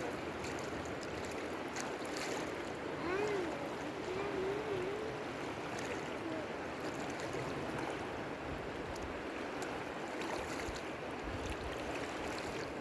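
Steady rushing of flowing river water, with a brief wavering hum of a voice about three to five seconds in.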